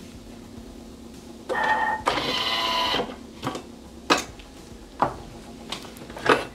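Thermomix TM6 at the end of its cooking program: a short tone, then about a second of whirring from its motorized lid-locking arms releasing, over a low steady hum. Sharp clicks and knocks follow as the lid is lifted off and the stainless steel mixing bowl is handled.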